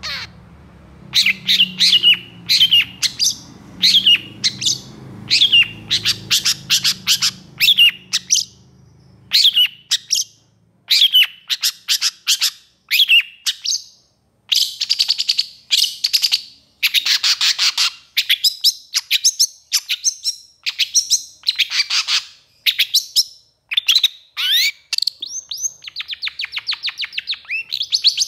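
Long-tailed shrike (pentet) singing agitatedly: rapid runs of short, sharp downslurred notes, broken by harsh, buzzy rattling phrases in the middle.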